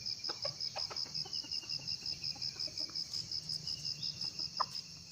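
An insect chirping in an even, high-pitched pulse of about six chirps a second, which stops near the end. A few faint short knocks sound underneath.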